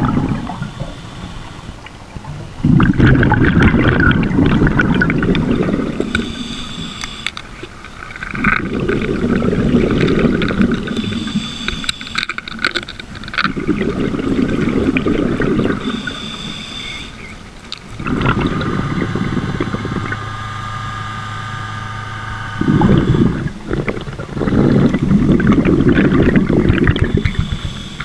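Scuba diver breathing underwater through a regulator: a burst of exhaled bubbles rumbling about every five seconds, with a short hiss of each inhale between them. A low steady hum runs for a few seconds just past the middle.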